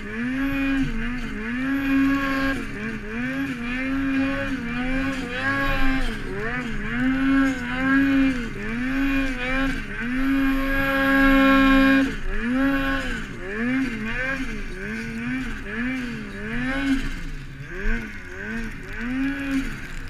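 Turbocharged Ski-Doo 850 two-stroke snowmobile engine working hard in deep, heavy snow. Its revs rise and fall about once a second as the throttle is worked, and are held high and loudest for about two seconds midway.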